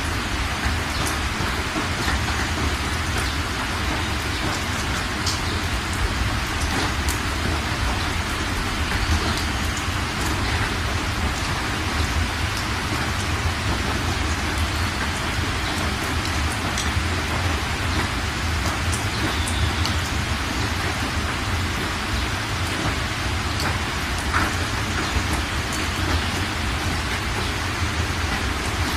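Heavy rain falling steadily: a dense, even hiss with a low rumble beneath and scattered sharper ticks of single drops.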